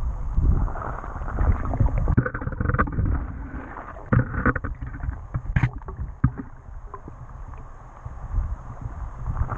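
Water movement heard underwater through a waterproof camera housing: a muffled, uneven low rumble with scattered clicks and knocks, one sharper click about halfway through.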